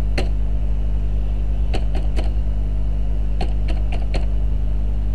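A handful of computer keyboard keystrokes, single sharp clicks spread a second or so apart, as a phone number is typed. Under them runs a steady low electrical hum.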